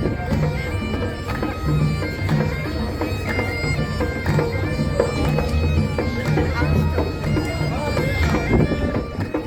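Bagpipes playing a tune: held notes moving in steps over a steady low drone.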